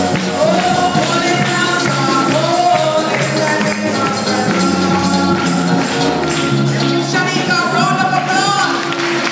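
Lively church music: singing voices over held keyboard chords, with a tambourine shaken in steady rhythm.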